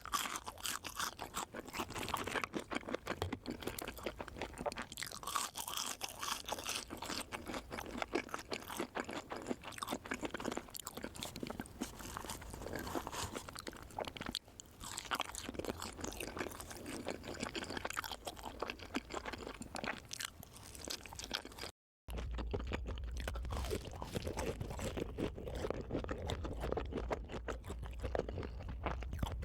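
Close-miked crunchy chewing and biting, a dense run of rapid crackling crunches. Near the end the sound cuts out for a moment, and the chewing then continues softer and duller over a low hum.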